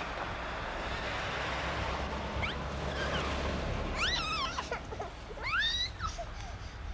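Two short, high, wavering cries a little over a second apart in the second half, over a steady rushing hiss.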